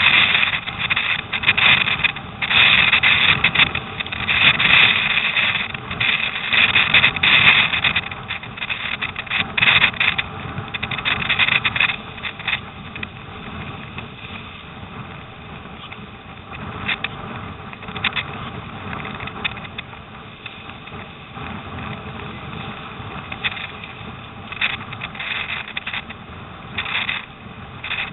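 Storm wind and choppy lake water rushing and splashing past a surfski, picked up by a camera mounted on the boat. Loud, uneven surges for about the first twelve seconds, then quieter, with brief gusts.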